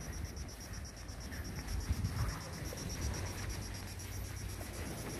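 Insects chirping in rapid, even, high-pitched pulses that run on without a break, over a low uneven rumble.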